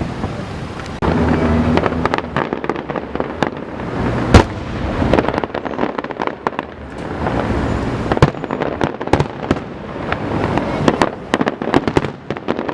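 Aerial fireworks display: a dense, continuous run of bangs and crackling bursts, with one loudest bang about four seconds in.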